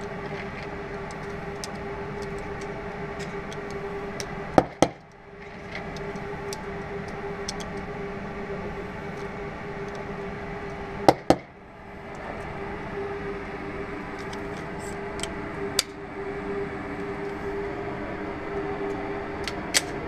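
Steady ventilation hum of an indoor shooting range with light clicks of 9 mm cartridges being pressed into a SIG P210 pistol magazine. About five and eleven seconds in, two loud gunshots in quick succession ring out from another lane.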